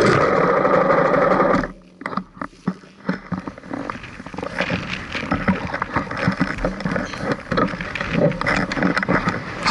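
Enduro dirt bike engine idling, then cut off abruptly a couple of seconds in. Irregular rustling, scraping and knocks follow as hands handle the chest-mounted action camera and riding gear close to the microphone.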